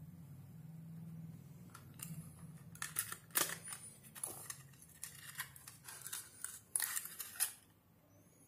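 A small cardboard medicine box being handled and opened and its foil blister strip of tablets slid out, making a run of short crinkles and clicks, loudest about halfway through and again near the end.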